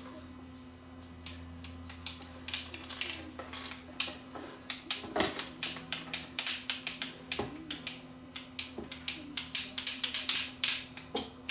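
The metal levers and linkages of a Dual 1225 turntable's chassis clicking and rattling as the chassis is lifted out of its wooden base and turned over by hand. The clicks come quick and irregular, growing busier towards the end.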